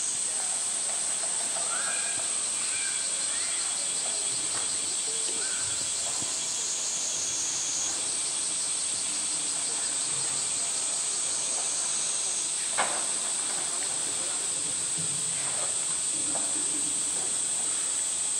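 Cicadas droning steadily in a high, even hiss, with a single sharp click about two-thirds of the way through.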